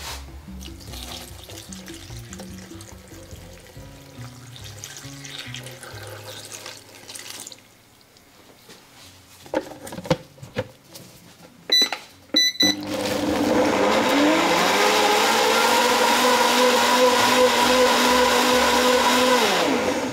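A few knocks and two short beeps, then a blender motor starts about thirteen seconds in. It rises in pitch as it spins up, runs steadily and loudly for about six seconds blending the leche de tigre ingredients, and winds down at the end.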